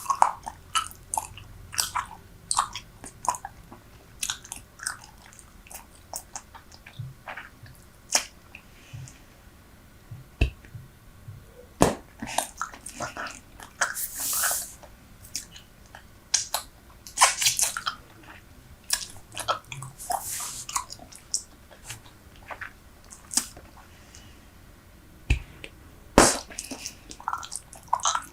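Close-miked chewing of Super Bubble bubble gum: wet smacks and sharp clicks coming at irregular intervals, with a couple of longer hissy sounds partway through.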